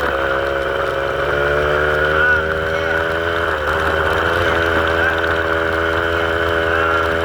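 A vehicle engine running at a steady speed, its pitch dipping briefly about halfway through.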